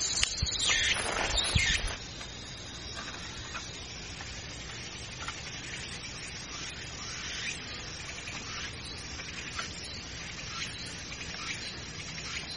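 Scraping and sharp knocks of bamboo poles being handled for about the first two seconds, then faint rustling and scratching as a lashing is wrapped around a bamboo joint, over a steady background hiss.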